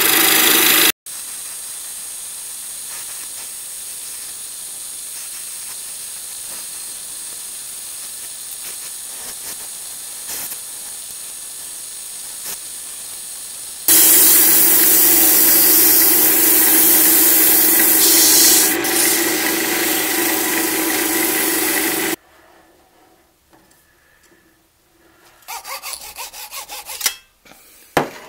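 Wood lathe spinning a pine handle blank while a turning tool cuts it, running steadily for most of the first half. About halfway through, sandpaper is pressed against the spinning wood and a much louder sanding sound runs for about eight seconds, then stops. The last few seconds are quiet apart from a few short sounds.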